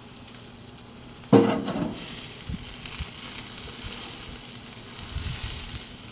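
Bacon-wrapped pork loin sizzling on a hot charcoal grill grate as it is shifted with tongs. About a second in comes a sudden loud knock of metal tongs against the grate, followed by a steady sizzling hiss of fat dripping onto the coals.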